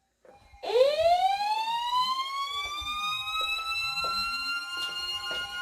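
Several weather radios sounding their alert sirens together for a flash flood warning. About half a second in, one siren sweeps quickly up in pitch and levels off into a steady wail. Under it runs a steady tone, and other sirens sweep up and down.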